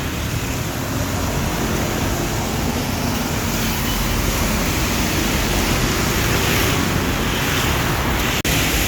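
Steady road traffic noise from vehicles running along a busy road, with no horn melody sounding; the sound cuts out for an instant near the end.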